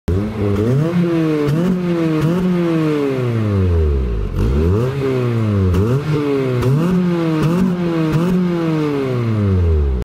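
Acura RSX Type-S four-cylinder engine free-revving through an Apexi WS2 aftermarket exhaust: a string of quick throttle blips, each revving up and dropping back, with two longer falls back toward idle, about four seconds in and near the end.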